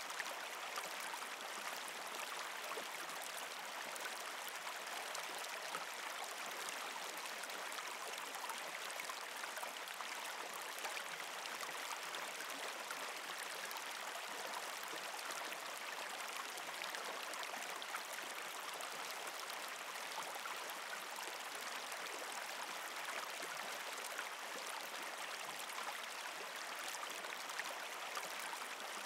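Steady running water, like a small stream, holding even throughout with no change.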